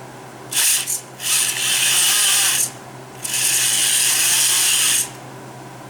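Small electric drive motors and gearboxes of a radio-controlled bulldozer conversion running in three bursts, a short one about half a second in, then two longer runs of a second and a half or more, with a ratcheting, grinding gear noise.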